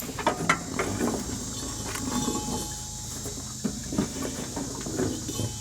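Irregular clicks, knocks and light rattles of an old rubber drive belt being worked by hand off the tensioner pulley and guide of a riding mower's deck, over a steady hiss.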